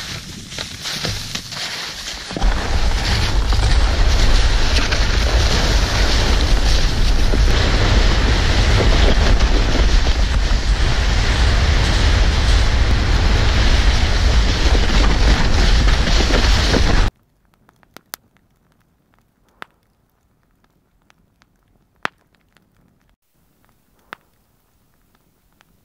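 Loaded gear sled sliding fast down a snowy slope: a loud, steady rush of snow hiss and deep wind rumble on the sled-mounted microphone, starting about two seconds in and cutting off suddenly. After that a wood campfire crackles quietly, with a few sharp pops.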